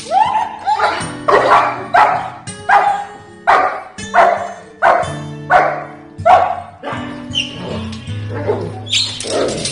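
A shepherd dog barks hard and repeatedly, about a dozen barks at roughly one and a half a second, as protection barking at a threatening helper in Schutzhund training; the barking stops about two-thirds of the way through. Background music plays underneath.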